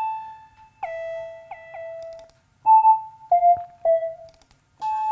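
Soft synth-lead presets in Native Instruments Massive being auditioned, one note at a time. A held note gives way to notes that slide down in pitch, then several shorter notes follow as the preset changes.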